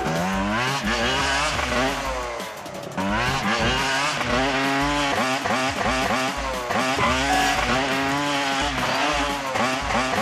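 Motocross bike engines revving hard, the pitch rising and falling again and again as the throttle is worked, with a brief drop in level about two and a half seconds in.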